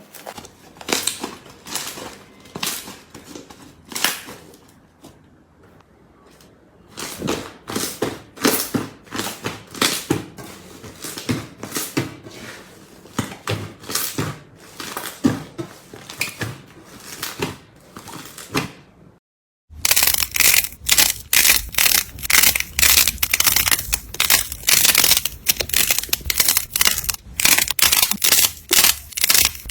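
Slime being squeezed and pressed by hand, giving runs of sharp crackles and pops. After a brief gap about two-thirds of the way in, a louder, denser crunching follows.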